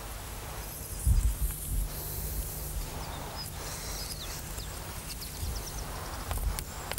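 Open-air background noise with a few low, muffled thumps about a second in and faint, short, high chirps of small birds in the middle.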